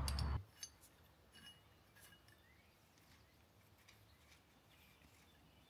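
Faint, scattered metallic clinks and taps as a billet aluminium power steering bracket, its spacers and bolts are handled and fitted against the front of an LS V8 engine. A low hum cuts off suddenly just after the start.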